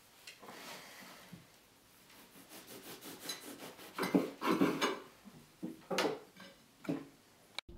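Table knife scraping across a slice of bread while spreading it: a few short rasping strokes, the loudest between four and five seconds in.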